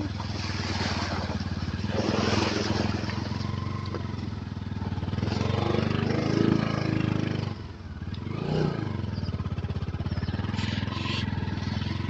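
Motorcycle engine running steadily at low speed on a rough gravel track, heard from the rider's seat. It eases off briefly about eight seconds in, then picks up again.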